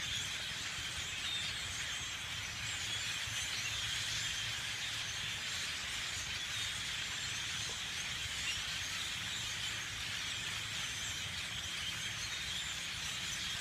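A huge flock of birds calling all at once from the trees, a steady din of countless overlapping high, squeaky calls.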